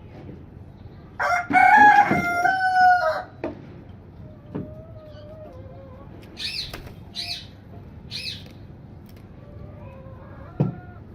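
An Aseel rooster crows once for about two seconds, starting about a second in, its pitch dropping in steps through the crow. Near the middle come three short, high-pitched calls from another bird.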